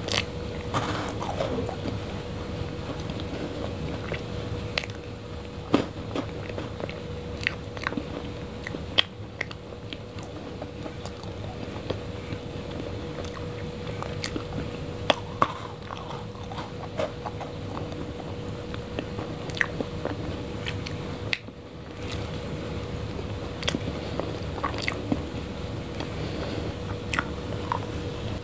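Close-miked mouth sounds of eating soft chocolate cake with a spoon: chewing and wet smacking, broken by scattered sharp clicks. A faint steady hum runs underneath.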